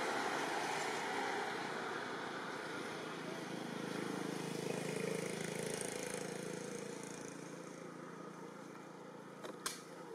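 A motor vehicle's engine, rising and then fading as it passes, over steady outdoor background noise. A single sharp click near the end.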